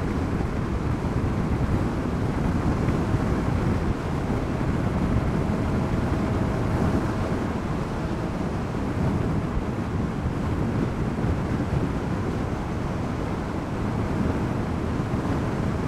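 Steady wind rush on the microphone and road noise from a LiveWire S2 Del Mar electric motorcycle cruising at about 75 mph. There is no engine note, and a faint steady whine shows for a few seconds in the middle.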